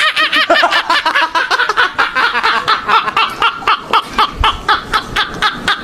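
Men laughing hard and uncontrollably, in rapid high-pitched bursts of about five a second.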